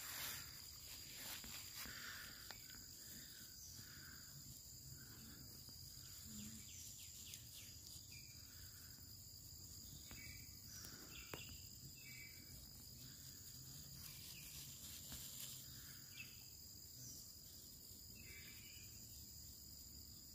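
Faint outdoor ambience: a steady high-pitched insect drone, with soft short calls repeating about once a second.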